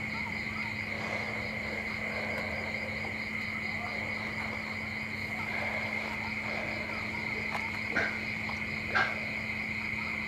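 Crickets chirping at night: a steady high trill with a faster pulsing chirp above it, over a steady low hum. Two short sharp clicks come about eight and nine seconds in.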